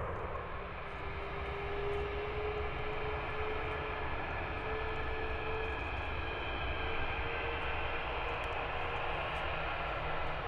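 Airbus A340-541's four Rolls-Royce Trent 500 turbofans running at low taxi power: a steady rumble with an engine whine that edges up slightly in pitch, then fades near the end.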